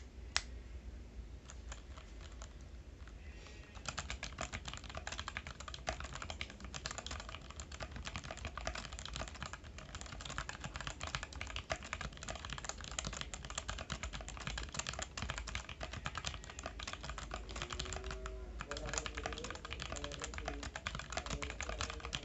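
Fast typing on a Vortex Series VX5 mechanical keyboard with Outemu Brown switches: a few scattered keystrokes, then from about four seconds in a dense, continuous stream of key clicks.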